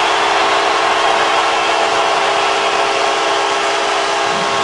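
Arena crowd cheering as the end-of-game horn sounds a steady, held chord.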